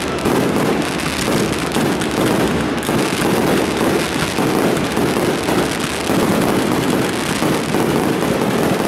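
Fireworks finale: aerial shells bursting in rapid, overlapping succession, so the bangs run together into a nearly continuous barrage.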